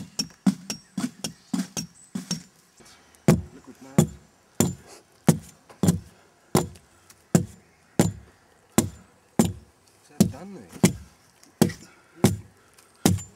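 Sharp knocks or chopping strikes: a quick run of about four a second, then after a short pause a steady, even beat of about three every two seconds.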